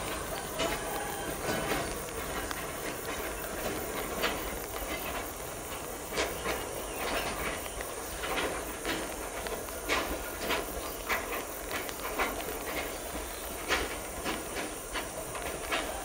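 Freight wagons of a pulp train rolling slowly away, their wheels giving irregular clacks and knocks over the rail joints and points above a steady hiss.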